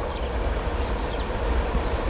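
WAP-7 electric locomotive approaching at the head of a passenger train: a steady low rumble with a steady humming tone over it.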